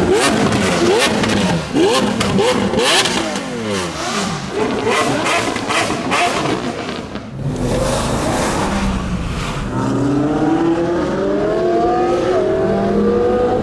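Several high-performance car engines revved hard, their pitch shooting up and falling back, with sharp exhaust crackles. Over the second half one car accelerates hard, its engine pitch climbing and dropping back at each of several upshifts.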